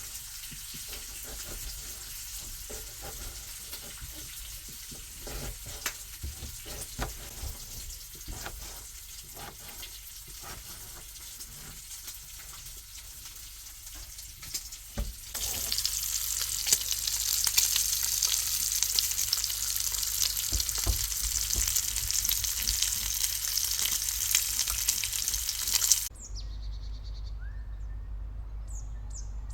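Bacon frying in a pan: a steady sizzle with scattered pops, which gets louder about halfway through. Near the end the sizzle cuts off abruptly, leaving faint bird chirps.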